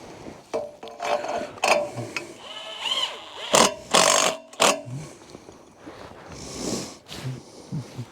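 Tools and gear being handled: a string of knocks, clanks and scrapes with a few short ringing notes, loudest about three and a half to five seconds in.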